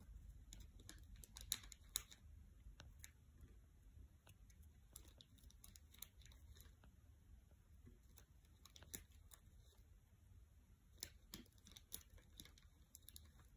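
Faint, scattered scratching and clicking of a kitten's claws catching on a cotton pillowcase as it paws and shifts its weight, in small clusters over a low room hum.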